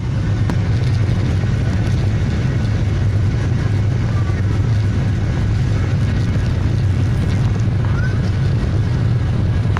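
Steady low rumble of an airliner's engines running, with no rise or fall in level.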